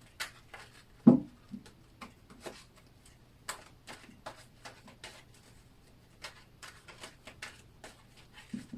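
Tarot cards being shuffled by hand: a run of soft, irregular card clicks and slaps, a few per second, with one louder thud about a second in.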